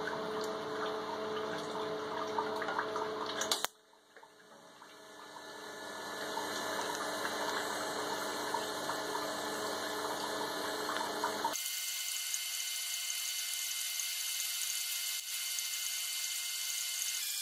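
Steady hum of the aquarium pump with water running through the torch's cooling hoses, broken off suddenly about four seconds in. Then a TIG welding arc runs steadily, with an abrupt change in tone about two-thirds of the way through.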